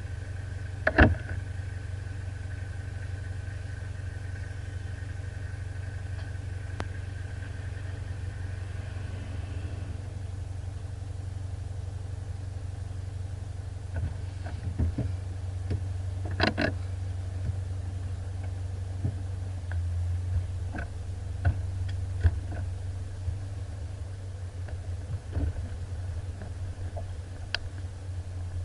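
Off-road vehicle's engine idling steadily, with a few sharp knocks and clunks: a loud one about a second in, another about halfway through and several smaller ones later.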